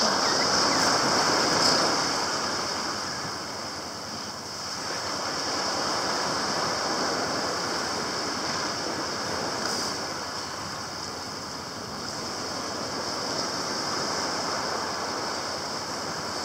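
Steady rushing of surf on the shore, slowly swelling and fading, with a steady high hiss over it.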